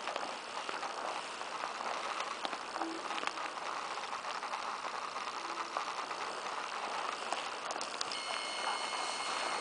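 Footsteps and rustling of tall grass and undergrowth as someone walks quickly through woodland, with scattered twig snaps and handling clicks. A steady high tone with overtones sounds for over a second near the end.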